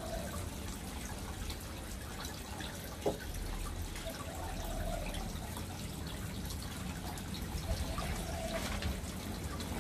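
Water trickling and dripping steadily, with small splashes and one light click about three seconds in.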